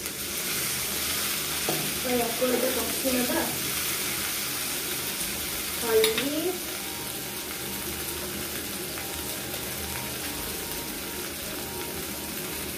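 Onion and spice paste frying in hot oil in a steel pan, with a steady sizzle as it is stirred with a spatula. There is a short squeal about halfway through.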